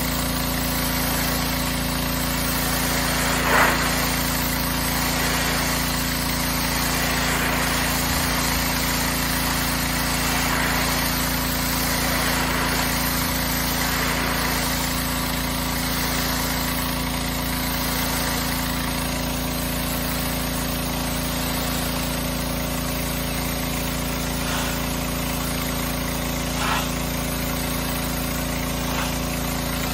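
Gas-engine pressure washer running steadily under load, with the hiss of its high-pressure spray striking house siding. Two brief louder bursts of spray, about three and a half seconds in and again near the end.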